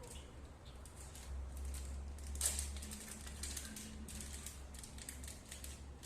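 Irregular small clicks and taps of objects being handled, with one louder click about two and a half seconds in, over a steady low hum.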